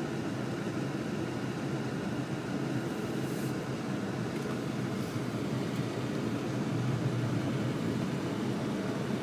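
Steady car engine and road noise heard inside the cabin while driving slowly on a snow-covered road.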